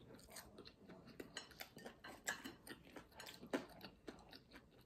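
Close-up chewing of a fried dumpling: faint, irregular wet mouth clicks and smacks, a few of them louder.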